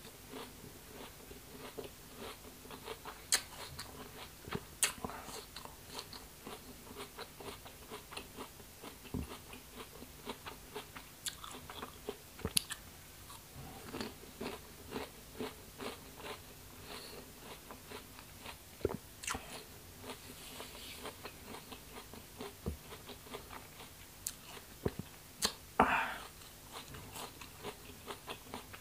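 Close-miked chewing of crisp, juicy wax apple (rose apple) flesh: soft irregular crunches and wet mouth clicks, with one louder burst near the end.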